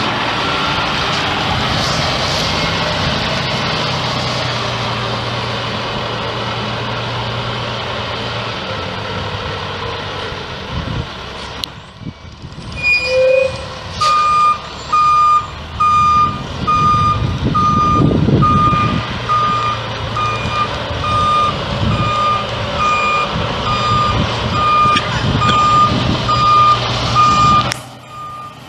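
International DT530 turbo diesel engine of a bucket truck running. About halfway through, the truck's backup alarm starts beeping steadily, about once a second, as the truck reverses, with the engine working underneath.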